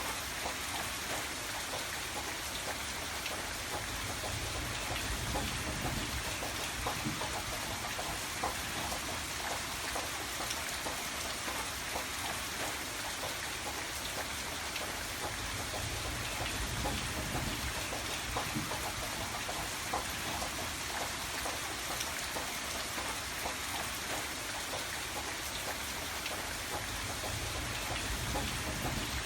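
Steady rain falling, with many separate drops ticking on a hard surface and a low rumble swelling now and then.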